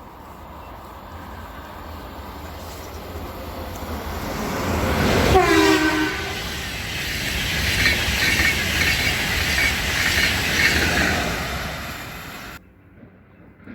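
Swiss electric passenger train approaching and passing, its noise building to a short horn blast about five seconds in, then the steady rolling of wheels on rails. The sound cuts off sharply near the end.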